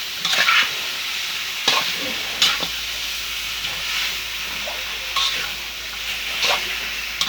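Curry paste sizzling as it fries in a hot pan, with a steady hiss broken by about five short scrapes of a spatula stirring it.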